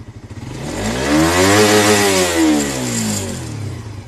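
Motorcycle engine revved once in neutral with the bike standing still: from idle the pitch climbs steeply, holds near the top for about a second, then falls back to idle near the end.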